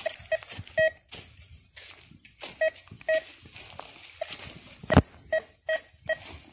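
Metal detector giving short, mid-pitched beeps, a few at a time, as its coil is swept over the ground: the signal of a buried metal target. Footsteps crackle on dry leaves and twigs, with a sharp snap about five seconds in.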